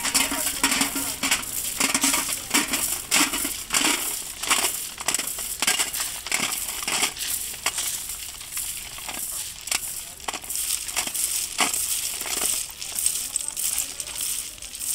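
Crushed-stone railway ballast being dug and scraped by hand tools around the sleepers: irregular crunching and clinking of stones, many strikes a second apart or closer.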